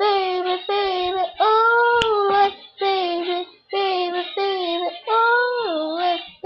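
A young boy singing a pop melody unaccompanied, in phrases of held, sliding notes. There is a brief click about two seconds in.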